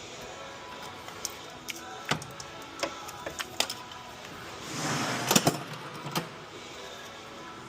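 Scattered sharp clicks and knocks of tools and parts being handled during engine disassembly, with a short burst of noise and the loudest clicks about five seconds in.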